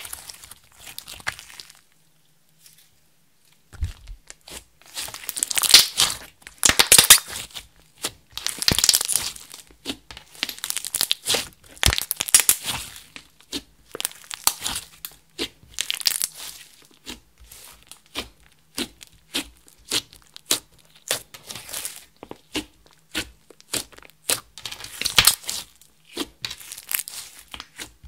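Hands kneading, pressing and folding a large lump of clear slime mixed with eyeshadow and glitter: sticky crackling and popping that comes in bursts every second or two, with a short pause a couple of seconds in.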